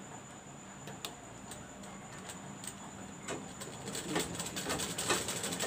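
Straight-stitch sewing machine worked slowly by hand while fabric is guided under the presser foot: scattered ticks and clicks of the needle and mechanism, getting busier in the second half.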